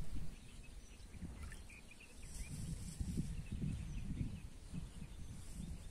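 Wind buffeting the microphone in uneven low gusts, strongest in the middle, with faint bird chirps now and then.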